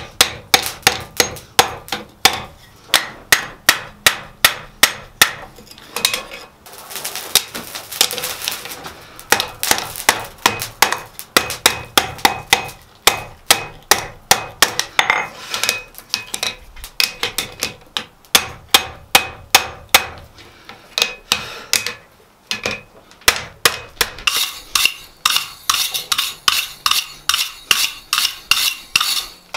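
Hand hammer striking a red-hot twisted steel bar on an anvil, about three blows a second, each blow ringing off the anvil, with a couple of brief pauses.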